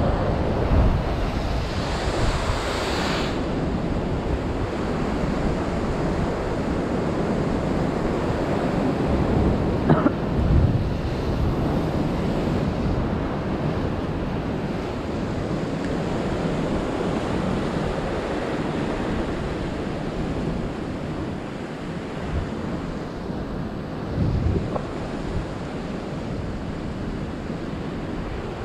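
Ocean surf surging and breaking against a lava-rock ledge, a continuous wash of water with a few louder swells, with wind buffeting the microphone.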